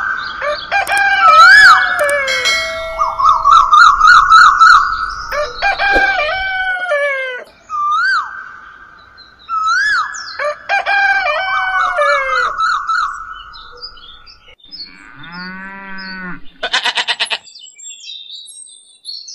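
Farmyard sound effects: roosters crowing and chickens calling, several calls overlapping. Near the end comes a shorter, lower animal call, then a quick run of clicks.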